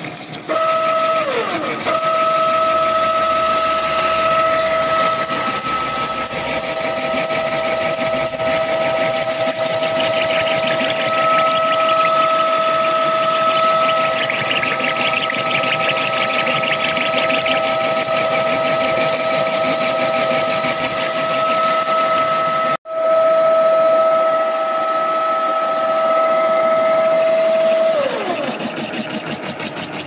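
End mill on a vertical milling machine cutting slots in steel wood-chipper knives: a loud, steady high-pitched whine of the cut over the running machine. The pitch dips briefly about a second in, and falls away near the end.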